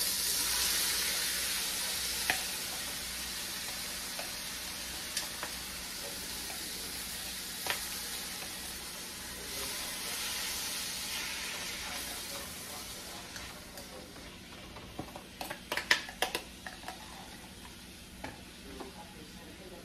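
Seasoned shrimp dropped into a hot wok with chopped vegetables, sizzling: the frying hiss is strongest at first and slowly dies down. A few sharp clicks and knocks against the pan, with a cluster of them about fifteen seconds in.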